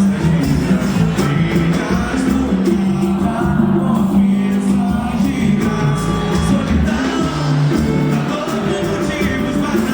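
A band playing a song with a singer's voice over it.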